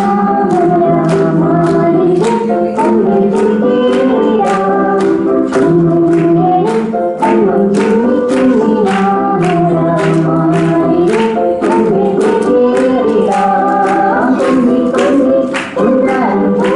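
A song sung by several voices together over instrumental backing with a steady beat of about three strikes a second.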